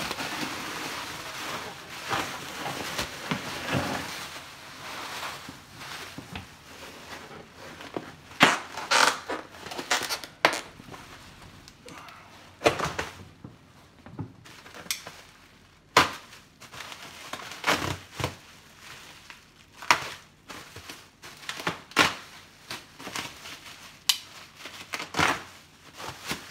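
Plastic bubble wrap being pulled, crumpled and rustled by hand, with irregular sharp crackles and a few dull knocks as a heavy wrapped computer chassis is handled in a cardboard box.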